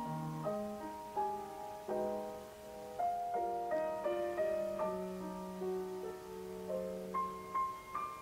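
Background solo piano music: a melody of single notes, about two a second, over long-held low notes.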